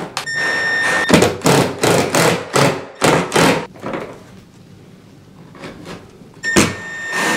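Cordless impact driver driving long wood screws through a door hinge into the casing: a high motor whine for about a second, then a run of short bursts as the screw is driven home. After a pause the whine and bursts start again near the end on the next screw.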